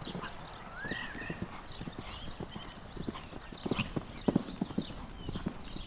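A horse's hooves beating on sand arena footing at the canter, with heavier thuds about four seconds in as it lands over a jump.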